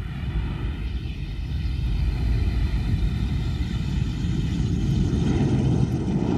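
McDonnell Douglas F/A-18 Hornet's twin jet engines during touchdown and landing roll: steady jet noise with a high whine over it. It grows louder over the first few seconds and then holds.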